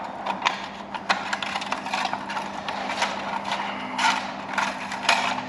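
Screwdriver working at a metal clip on a Bristol Hercules exhaust pipe: irregular clicks, taps and scrapes of metal on metal, over a steady low hum.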